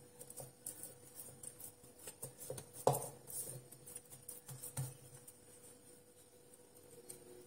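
Quiet handling noise of hands folding and pressing pastry dough on a granite board, with scattered light taps and knocks, the clearest about three seconds in.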